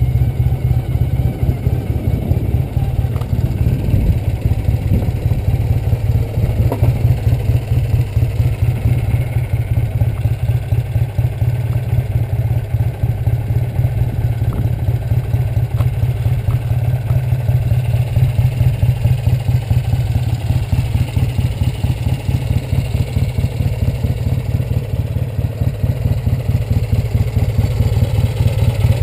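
1968 Triumph Bonneville's 650 cc parallel-twin engine idling steadily at the kerb, with an even firing beat.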